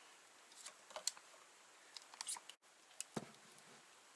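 Faint scattered clicks and small handling taps of a camera and its accessory parts being detached and handled.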